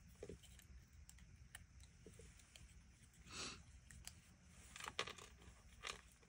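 Small, sharp paper snips fussy-cutting a piece of cardstock: faint, scattered snipping clicks, with a few short, louder rasps of blade through card about halfway through and near the end.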